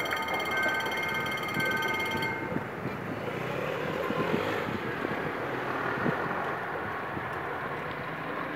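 Passenger coaches rolling past on the rails, the wheels' rumble and clatter easing as the end of the train moves away. A high, steady ringing with several pitches cuts off about two seconds in.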